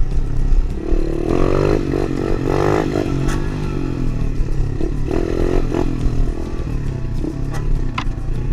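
Tao Tao DB24 110cc pit bike engine running under changing throttle, its note rising and falling several times as it is revved and eased off.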